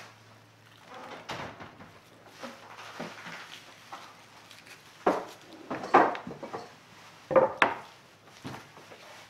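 Kitchen handling sounds as garlic cloves are peeled by hand: soft papery rustling, then a handful of short knocks as a wooden cutting board and utensils are set down on the counter, the loudest about five, six and seven and a half seconds in.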